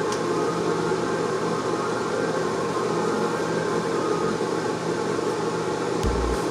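A steady machine hum with an even hiss.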